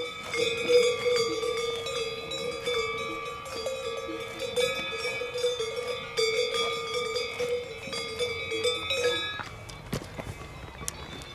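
A cowbell on a grazing cow clanks at uneven intervals, each stroke ringing on with a clear metallic tone. The bell stops about nine and a half seconds in.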